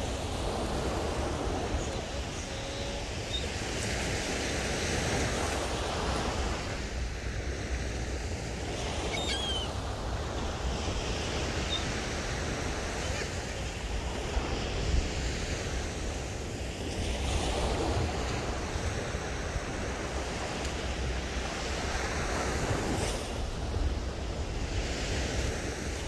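Surf breaking and washing up a sandy beach, swelling and easing as each wave comes in, with wind rumbling on the microphone.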